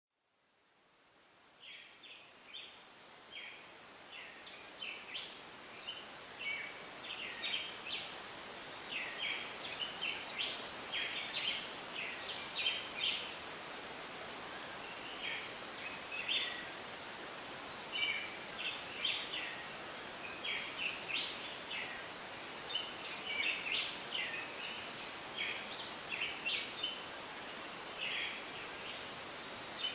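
Tropical rainforest ambience: a dense, overlapping chorus of short high chirps and calls over a soft steady hiss, fading in over the first couple of seconds.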